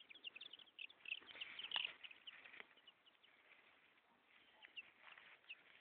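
Chickens chirping faintly in short, high notes: a quick run of chirps in the first two seconds, then a few scattered ones near the end.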